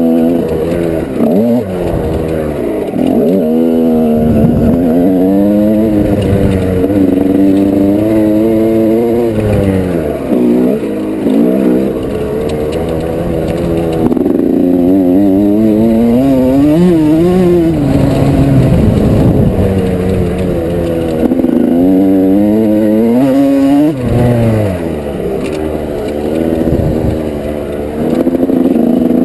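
1987 Yamaha YZ125's single-cylinder two-stroke engine revving hard and dropping off again and again as it is ridden around a motocross track, the pitch climbing through the gears and falling off-throttle several times.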